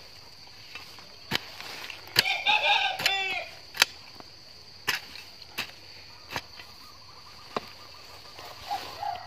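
A metal spade blade chopping and scraping into a heap of composted rain tree leaves, about one stroke a second, as the leaves are scooped into a plastic basket. A chicken calls about two seconds in, and again near the end.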